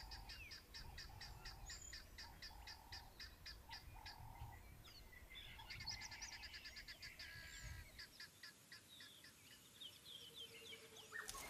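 Faint wild ambience: birds chirping, with short calls and small glides in pitch, over a rapid, even ticking of about five ticks a second.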